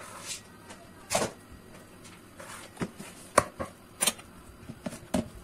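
Kitchen tools handled on a countertop: about five separate sharp clicks and knocks, such as a metal knife against a bowl and a cake ring being set down.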